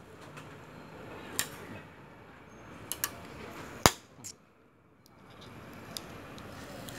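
Glued LED backlight strips of an LG LCD TV being pried off its sheet-metal back panel: a handful of sharp clicks and snaps as the strips pull free of their adhesive, the loudest a little under four seconds in.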